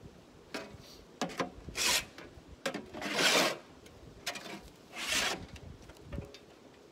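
Rough rasping scrapes: three longer strokes about one and a half seconds apart, with short knocks and scuffs between them.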